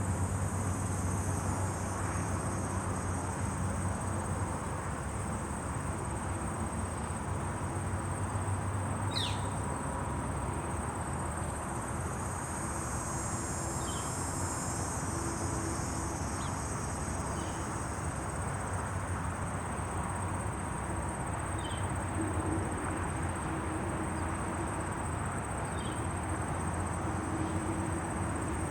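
Countryside daytime ambience: a steady high trill of crickets throughout, with a handful of short, falling bird chirps scattered through it, over a low, steady wind rumble.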